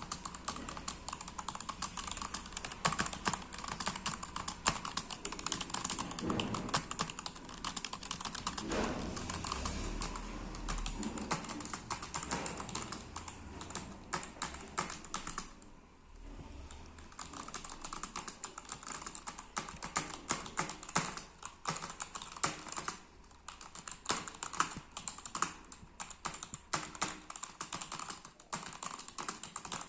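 Continuous fast typing on a Zebronics computer keyboard: a rapid, uneven patter of key clicks, with two short pauses, about halfway through and again a few seconds later.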